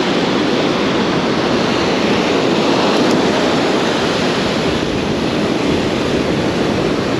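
Surf breaking and washing up a sandy beach, a steady rush of noise, with wind on the microphone.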